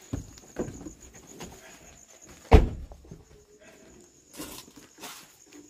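A car door shut with a single heavy thunk about two and a half seconds in, with lighter knocks and clatter from handling the car around it.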